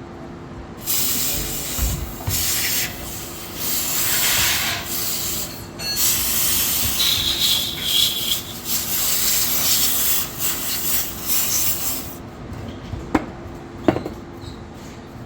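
Aerosol carb cleaner spraying in several long hissing bursts onto oil-soaked ignition coils, which are being cleaned because the oil makes them short out. A couple of sharp clicks follow near the end.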